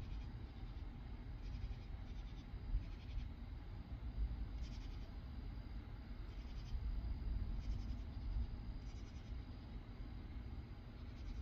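Night insects chirping in short, buzzy pulsed bursts that repeat roughly once a second, over a steady low rumble.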